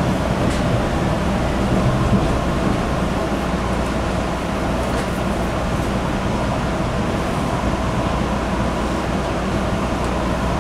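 An MBTA Red Line subway car running, heard from inside the car: a steady rumble with a faint steady whine and a few light clicks.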